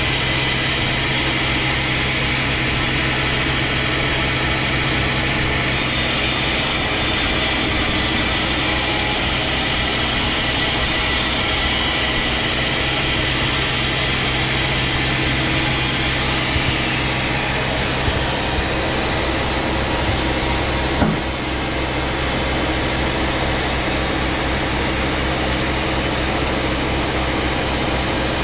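Engine-powered saw running steadily while it cuts through a large log. The cutting noise eases off about two-thirds of the way through, while the engine keeps running, and there is a single knock a few seconds later.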